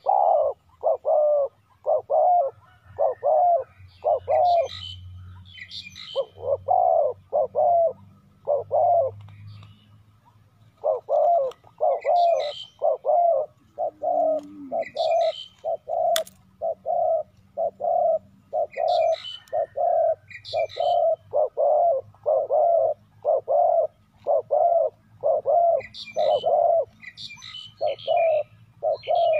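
Spotted dove cooing over and over in quick short notes, with a brief pause partway through. Higher chirps from other small birds come in now and then, and a single sharp click sounds about halfway.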